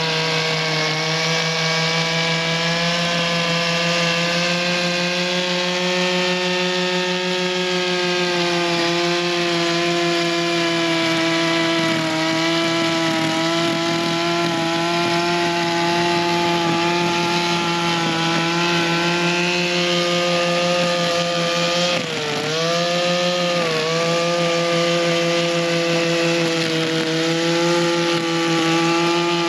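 Echo SRM-266T string trimmer's small two-stroke engine running on its new carburettor, held steadily at high speed. Near the end its pitch sags briefly twice and recovers, as the line takes load.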